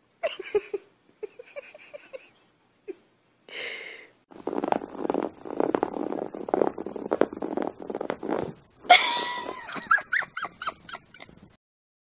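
Kittens mewing in short squeaky calls, with a few seconds of scuffling and rustling in the middle. Near the end comes a quick run of high, falling mews, several a second.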